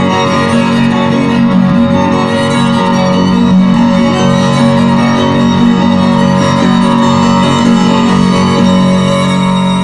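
Violin and cello bowing long held notes together in a slow chamber piece.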